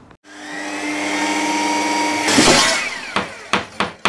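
A power tool motor runs with a steady whine for about two seconds, then a loud rasping burst. About four sharp knocks follow in quick succession near the end.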